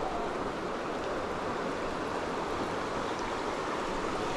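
Shallow, swift trout stream rushing steadily over rocks and riffles.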